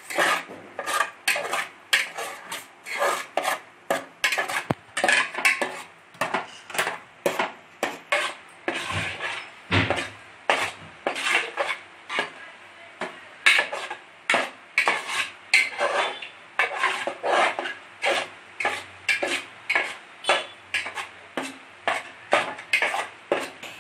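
A spatula scraping and stirring semolina cooked in milk in a metal pan, in quick regular strokes of about two a second, as the mixture thickens into a dough.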